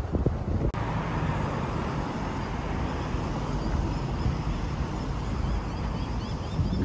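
Street traffic noise, a steady rumble of passing road vehicles, after a brief buffet of wind on the microphone at the very start. Faint short high chirps repeat in the second half.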